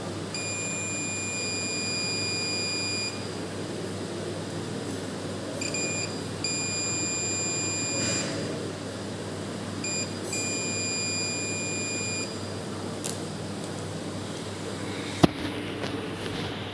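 Mastech digital multimeter's continuity buzzer beeping a steady high tone as the probes touch the heating element's terminals. There are three long beeps, of about three, one and a half and two seconds, with short blips between them; the meter beeps only on a low-resistance path, a sign that the element's coil is intact. A sharp click comes near the end.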